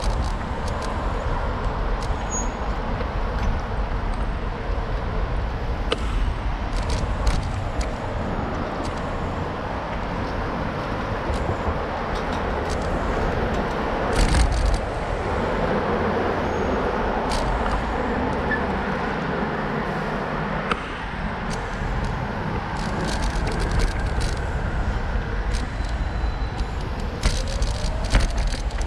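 Street traffic noise: a steady rumble of passing cars, with scattered short clicks and knocks.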